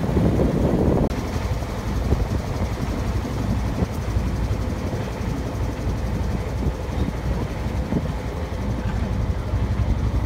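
Ferry boat's engine running with a steady low rumble. The sound changes abruptly about a second in, to a more even rumble.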